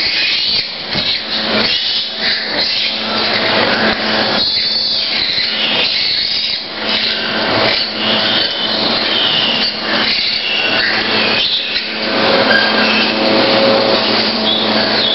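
Steady mechanical hum of farrowing-room equipment, with a shifting chatter of high squeals over it from a crowd of piglets jostling and suckling at the sows.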